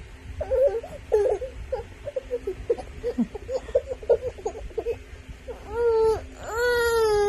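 Baby vocalising: short, choppy sounds, then two drawn-out whining cries of about a second each near the end.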